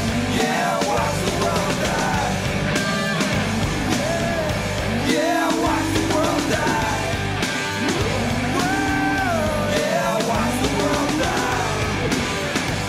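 Background music: a rock song with a singer's voice over drums and a steady beat.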